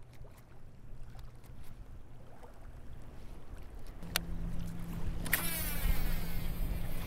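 A cast with a baitcasting reel: a sharp swish of the rod about five seconds in, then the spool whirring and falling in pitch as the line pays out. From about four seconds in there is a steady low hum under it.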